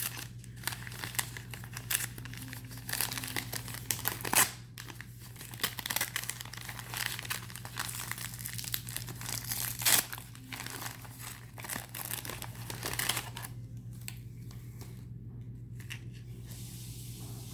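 Gift-wrapping paper being crinkled and torn open by hand, with a few sharper rips. The handling stops about three-quarters of the way through, leaving a faint steady hum.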